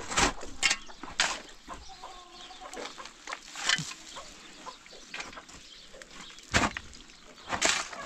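Metal shovel scraping and striking stony, gravelly ground in separate strokes: three quick ones near the start, then a few more spaced out, the one about two-thirds through with a low thud. Chickens cluck faintly in the background.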